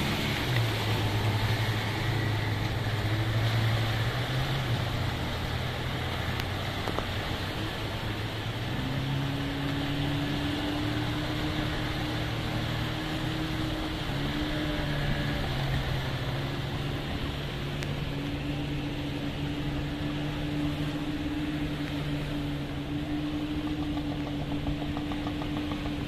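Engines of small wooden outrigger fishing boats running steadily, with a second, higher engine note joining about nine seconds in as another boat passes close by, over a constant wash of waves breaking on rocks.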